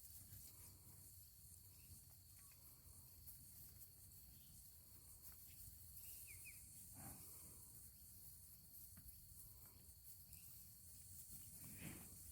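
Near silence: faint outdoor ambience with a steady high hiss and a low rumble, and a brief faint chirp about six seconds in.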